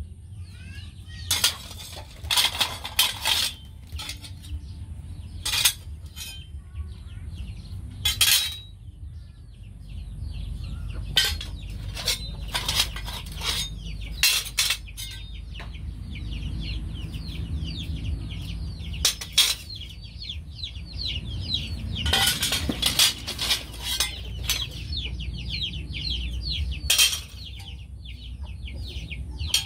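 Steel cleavers with tubular steel handles clinking and clanking against one another as they are picked up and laid back on the pile, in sharp metallic clinks scattered through, bunched in several clusters. Behind them, birds chirp rapidly for much of the time, over a low steady rumble.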